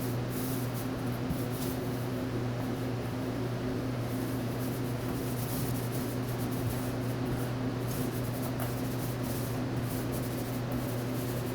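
Steady electric motor hum, with faint, irregular scratchy rustling from a paint roller being worked on a wall.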